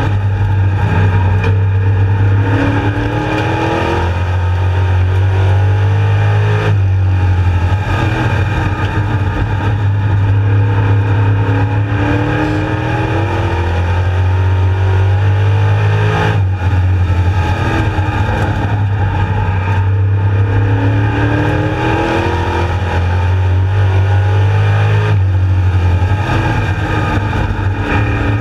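Street Stock race car engine at racing speed, heard from inside the cockpit: it climbs in pitch under throttle, then drops back as the driver lifts, over and over as the car goes round the oval.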